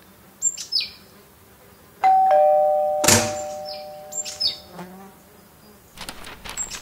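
Two-note doorbell chime, a higher note then a lower one, ringing out and slowly fading, about two seconds in. It is preceded by a couple of short bird chirps, and a brief thud follows about a second after the chime.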